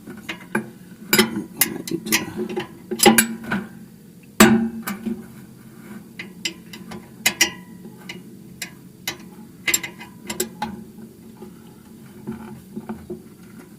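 A 12 mm wrench clicking and knocking against an engine oil drain plug in irregular metallic taps as it is worked to crack the plug loose; the plug is still snug and does not give.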